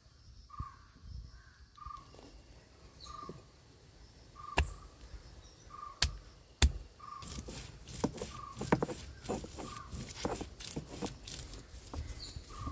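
A stone roller knocks down onto fresh turmeric roots on a granite grinding slab. There are a few sharp single knocks about halfway through, then a quick run of crushing strokes. A bird calls throughout with short repeated notes, about one a second.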